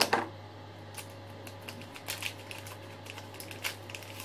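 Irregular light clicks and crinkles of a pregnancy test's plastic wrapper and casing being handled and opened by hand, over a steady low hum.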